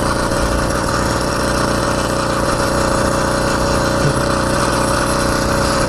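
Gas-powered bicycle's small kit engine running steadily at a constant pitch, driving the bike along with no pedalling.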